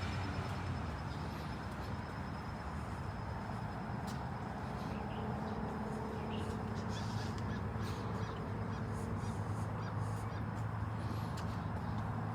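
Outdoor city ambience: a steady low hum of distant traffic, with birds calling now and then over it.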